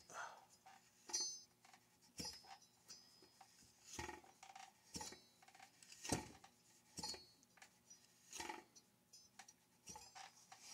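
Light metallic clinks and taps of a chainsaw engine's parts and hand tools being handled on a workbench: scattered single clicks about once a second, a few with a brief ring.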